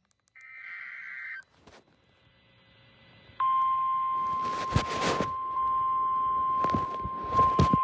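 Emergency alert signalling: a short burst of warbling SAME digital header data, then about three and a half seconds in the National Weather Service 1050 Hz warning alert tone starts, a single steady high beep, with a few short bursts of noise over it.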